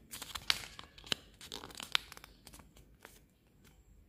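A sheet of paper being folded and creased by hand: rustling, with a few sharp crackles in the first two seconds, then quieter handling.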